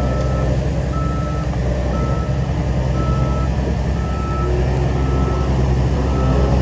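Reversing alarm on a heavy machine beeping at one steady pitch, about one half-second beep each second, over the steady low running of its diesel engine.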